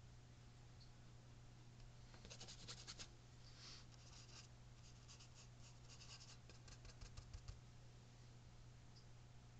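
Faint scratching and tapping of a fine paintbrush, its bristles working paint on the canvas and palette, in short clusters from about two seconds in to about seven and a half, over a low steady hum.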